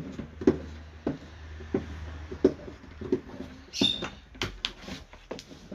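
Irregular light clicks and taps, roughly two a second, over a low hum, with a brief high squeak about four seconds in.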